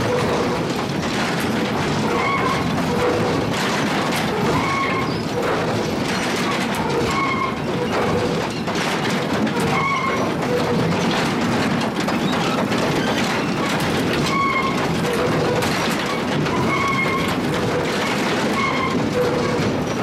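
Sawmill log step feeder running: a steady machine din with frequent knocks of pine logs on its steel steps. Short pitched squeals or tones recur every second or two.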